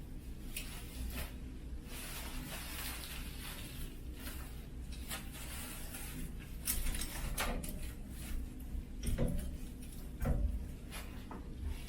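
Clothes on hangers being handled and bagged: plastic trash bag rustling and crinkling, with hangers knocking. A few louder knocks come in the second half.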